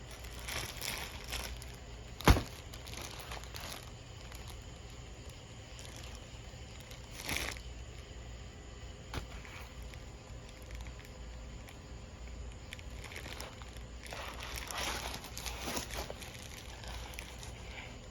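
Rustling and crinkling of material being handled, in scattered bursts, with one sharp knock about two seconds in.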